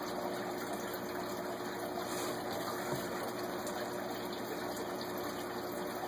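Steady background hiss with a faint constant hum underneath and no distinct event.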